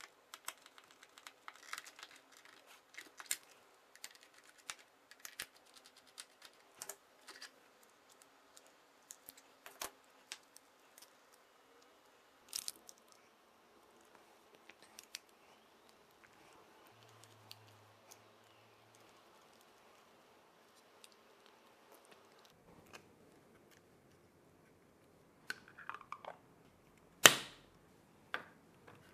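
Small clicks and taps of a screwdriver, screws and hard plastic parts being handled while fitting parts into a 3D-printed RC car, with one sharp, louder plastic click near the end.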